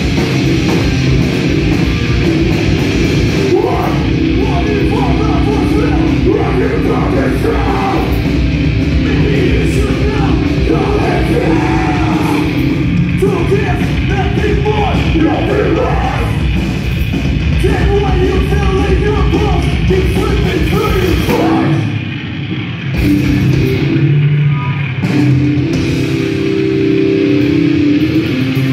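Heavy rock band playing live: distorted guitar, bass guitar and drums with shouted vocals. About 22 seconds in, the low end drops out for a few seconds, then the full band comes back in.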